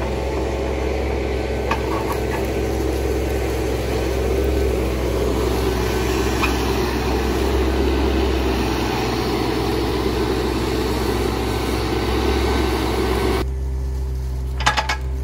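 Bobcat E20 mini excavator's diesel engine running steadily as the machine works, a low drone with dense mechanical noise over it. About four fifths of the way through the sound drops to a quieter steady engine hum, with a few sharp clicks near the end.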